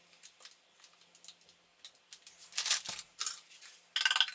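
Kitchen utensils being handled: scattered light clicks and taps, a short rustling rush a little past the middle, and a clatter with a brief ring near the end as a bowl is set down on the worktop.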